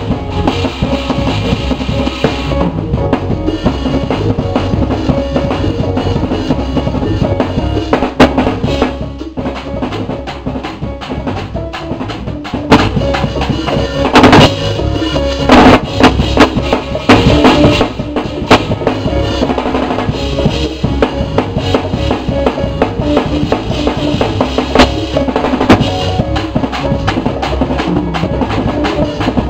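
Live drum kit playing a busy groove with bass drum and snare over band music, with a held pitched note underneath. A run of loud accented hits comes about halfway through.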